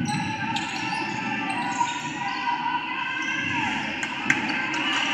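Basketball gym during a girls' high school game: crowd and player voices chattering, with basketballs bouncing on the hardwood court. One sharp knock stands out a little after four seconds.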